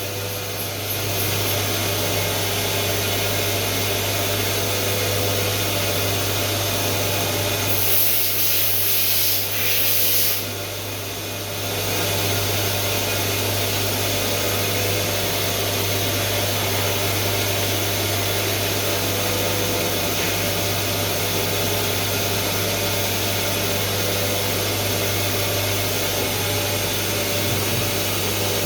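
A Doosan CNC machine running with a steady mechanical hum and hiss. A louder burst of hissing comes about eight seconds in and lasts about two seconds.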